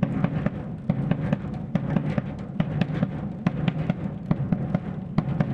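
Surdo bass drum played in a quadrilha rhythm: a steady run of strokes with the drum's low boom ringing between them.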